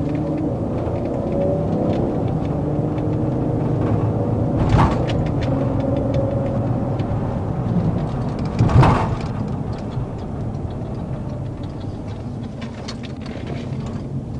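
Car engine running with a steady low rumble, broken by two short knocks about five and nine seconds in.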